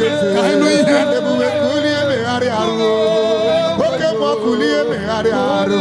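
Singing with musical accompaniment: a voice holding long, wavering notes with vibrato.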